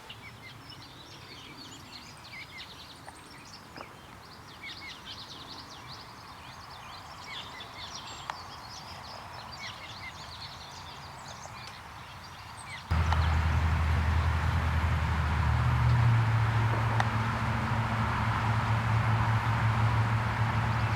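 Many short, high bird chirps and calls over a faint outdoor background. About thirteen seconds in, it cuts abruptly to a much louder, low steady drone with a hiss over it.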